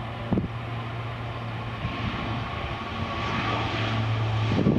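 De Havilland Canada Dash 8-400 turboprop on its take-off roll, its two Pratt & Whitney PW150A engines and six-bladed propellers at take-off power. They give a steady low propeller drone and a thinner higher whine, growing louder as the aircraft comes closer.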